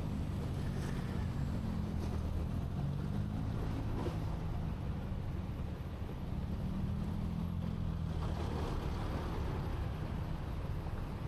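Street traffic heard from a motor scooter waiting at an intersection: a steady low hum from the engines of idling and passing cars and motorbikes.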